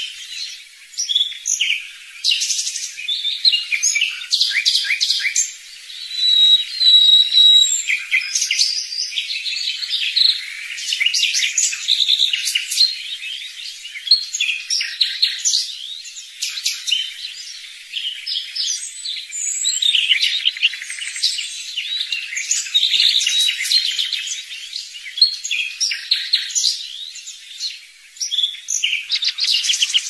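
A chorus of songbirds singing: dense, overlapping high chirps, trills and short whistles with no let-up.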